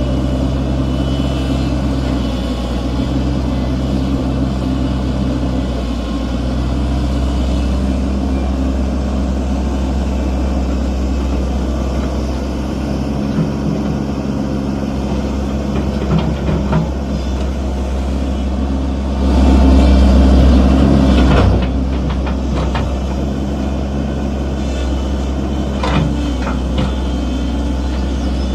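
Hitachi excavator's diesel engine running steadily as the machine works. It surges louder for about two seconds a little past two-thirds of the way in, and a few short knocks come through.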